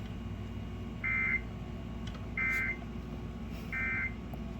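EAS/SAME end-of-message data tones from a NOAA Weather Radio broadcast: three short, identical warbling bursts, each about a third of a second long and about 1.3 s apart, marking the end of the weather alert. A faint steady hum runs underneath.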